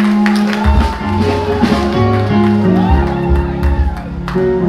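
Live band music: held chords over a moving bass line, with sharp drum or percussion hits.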